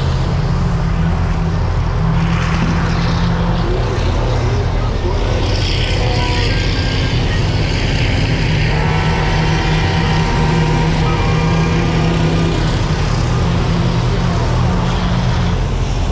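School buses racing on a dirt oval, their engines running continuously over a steady low engine drone.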